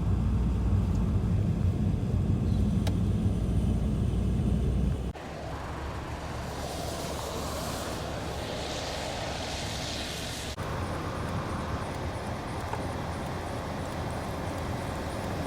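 Outdoor road-traffic sound in three cut-together shots: a heavy low rumble for about the first five seconds, then a lighter, steady hiss of traffic.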